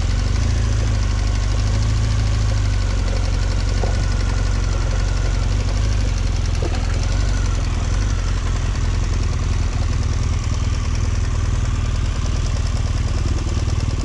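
Motorcycle engine running steadily on the move, with a dense rushing noise over it.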